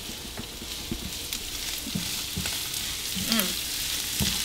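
Bay scallops, bacon and onions sizzling in bacon grease in a frying pan, with scattered clicks of a utensil stirring them against the pan.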